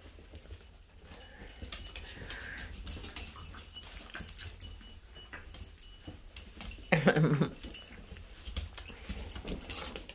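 Boston terrier puppies playing and scuffling on a laminate floor, with scattered clicks and a faint whine about two seconds in. About seven seconds in, a dog gives one short, loud bark.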